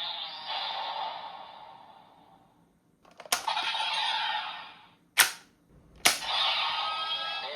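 Electronic sound effects played through the speaker of a Bandai Kamen Rider transformation toy. A sound effect fades out, then there are three sharp bang-like hits, about three, five and six seconds in, each followed by crackling synth effects.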